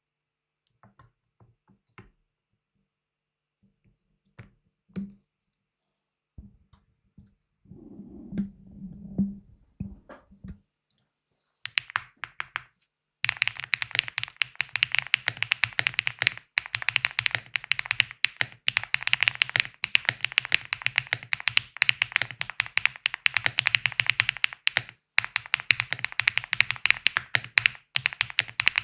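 Owlab Jelly Evolv mechanical keyboard with Ice Grass switches and PBT keycaps being typed on. A few scattered keystrokes and soft knocks come first, then steady, fast typing starts about halfway through.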